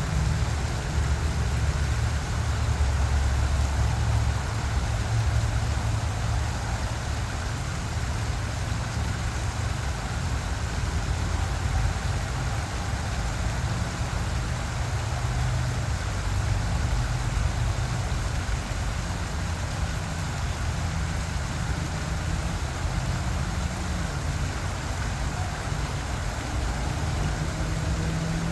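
Small waterfall rushing steadily, a continuous wash of falling water with a strong low rumble underneath.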